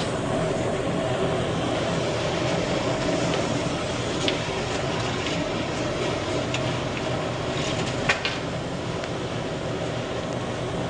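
Steady mechanical hum and rumble of bakery equipment running, with a few light clicks and knocks from the wooden bread peel working on the oven floor, the sharpest about eight seconds in.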